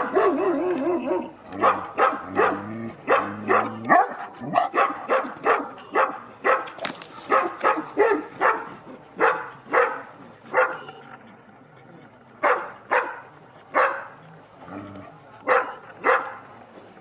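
Šarplaninac shepherd dog barking at a threatening man, about two deep barks a second, broken by two short pauses in the second half.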